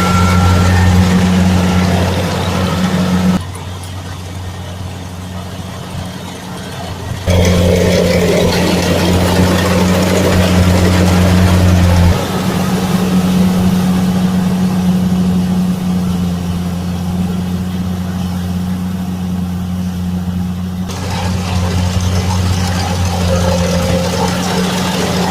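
Kubota rice combine harvester's diesel engine running steadily with a low, even drone. The sound drops away for a few seconds about three seconds in, then comes back at full strength.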